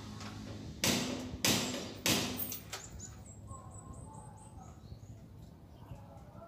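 Three short, harsh rasping strokes in the first half, about half a second each, from hand work on a steel trellis security door being fitted. After them the sound drops to a low background.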